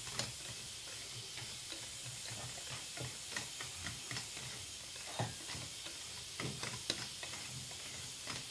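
Thick cake batter being stirred by hand with a whisk in a ceramic bowl: soft, irregular wet clicks and taps of the whisk against the bowl over a faint steady hiss.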